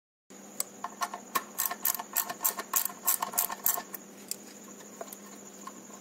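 Irregular light clicks and taps, most frequent in the first four seconds and sparser after, over a steady low electrical hum.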